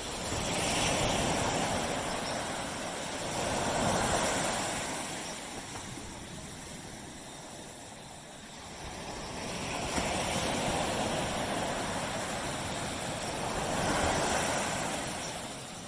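Waves washing onto a beach: the surf swells and eases in two long surges, each several seconds long.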